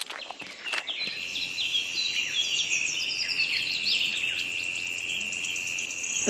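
Birds chirping, many short quick calls, over a steady high insect trill, with a few clicks in the first second.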